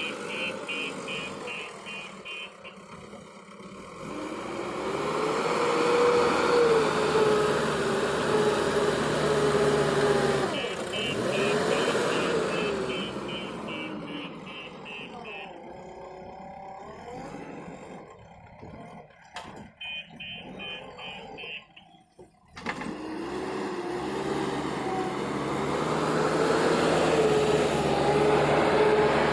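Backhoe loader's diesel engine revving up and down as it works, with a reversing alarm giving fast, evenly spaced beeps in three stretches. The sound drops out briefly about 22 seconds in.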